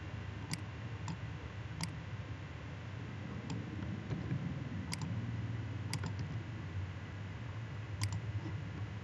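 Computer mouse clicking: about five sharp clicks spread irregularly through the stretch, with a few fainter ones between, over a low steady hum.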